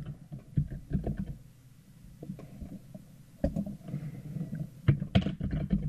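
Computer keyboard keys and mouse clicks tapping irregularly, dull taps with a low thump. They come in short clusters about half a second in, again about three and a half seconds in, and a denser run near the end.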